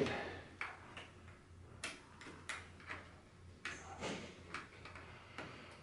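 Scattered small clicks and light rustling from gloved hands handling flat ribbon cables and pressing them into their plastic connectors on a TV's T-Con board, with a brief scrape about four seconds in.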